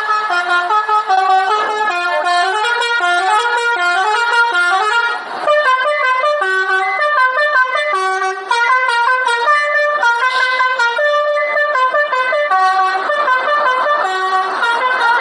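Indonesian bus 'telolet' multi-tone air horn playing a rapid melody. Its pitched notes step up and down several times a second, with a short break about five seconds in.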